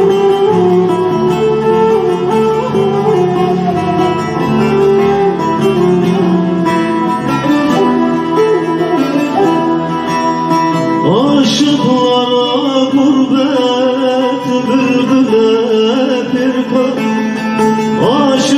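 Live music: a plucked string instrument plays a melody, and from about eleven seconds in a man's voice comes in, singing an ornamented, wavering line into a microphone.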